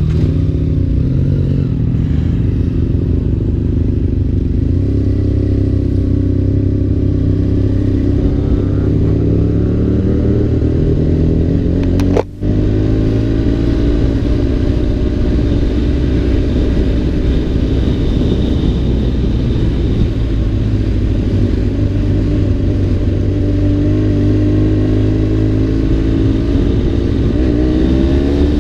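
Sport motorcycle engine running while the bike rides at low speed, its note rising several times as it accelerates. The sound briefly cuts out about twelve seconds in.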